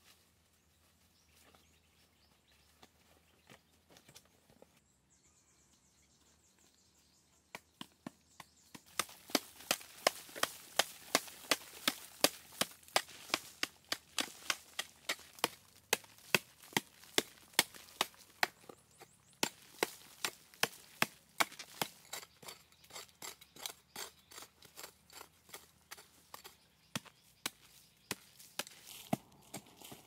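Wood being chopped with a blade in quick, regular strokes, about two to three a second, starting about eight seconds in after a quiet spell. The strokes are loudest at first and grow softer over the last several seconds.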